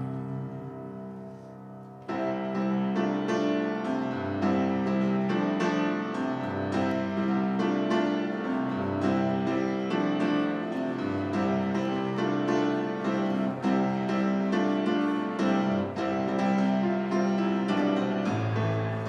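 Piano music: a held chord dies away, then a fuller passage of many notes comes in suddenly about two seconds in and plays on.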